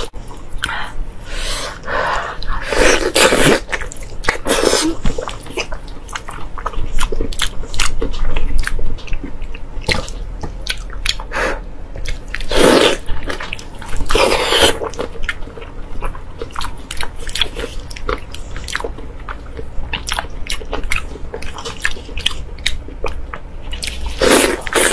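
Close-miked biting and chewing of a braised pork knuckle: the soft skin and meat are pulled off with the teeth and chewed, in an uneven series of bites and mouth sounds.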